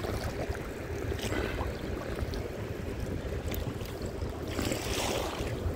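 Wind rumbling on the microphone over small waves lapping against a kayak, with a few faint clicks and a brief louder rushing noise near the end.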